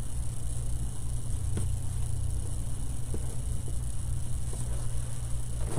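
Steady low hum, with a few faint light clicks as small painted wooden slats are handled and set down on paper.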